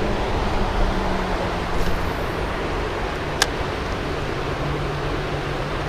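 Steady rushing of a creek running high after rain, with a single sharp click about three and a half seconds in.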